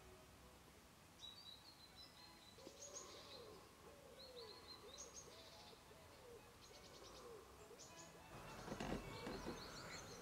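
Faint birdsong: short high chirps and trills, with a run of about five lower arching calls in the middle. A louder rustling noise comes in about eight seconds in.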